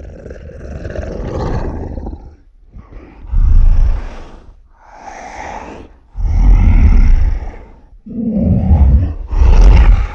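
Zilla Junior monster roar sound effects, about six roars in quick succession, each lasting a second or two. Some are deep and heavy, others higher and thinner; the loudest come about three, six and nine seconds in.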